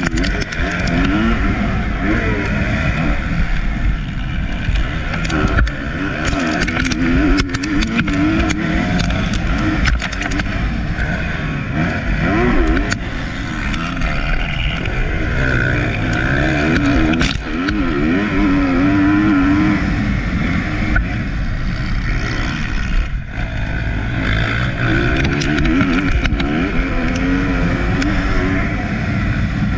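Motocross bike engine heard from on board under hard riding, revving up and falling back again and again through corners and jumps.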